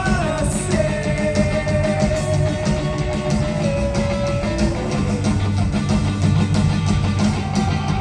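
A hardcore punk band playing live through a big PA: loud distorted electric guitars over drums and bass. A long held note rides on top for about the first half, then drops away.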